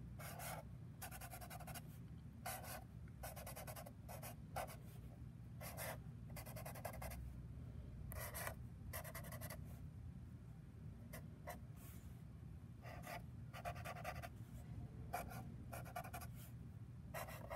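Black felt-tip marker drawing on paper: many short, faint scratchy strokes in an irregular rhythm, with pauses between.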